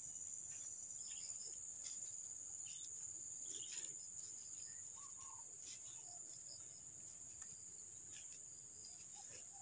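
Steady, high-pitched insect drone from the surrounding vegetation, with faint scattered rustles and ticks of movement through dry undergrowth.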